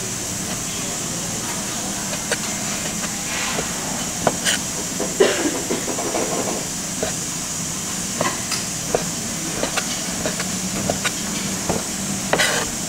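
Large kitchen knife chopping seared beef steak on a wooden cutting board: short, irregular knocks of the blade on the board over a steady hiss.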